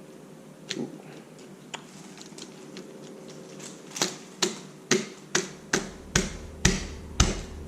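Deadbolt hardware clicking and tapping as it is handled and fitted into the door: a couple of single clicks, then a run of sharp clicks about two a second through the second half.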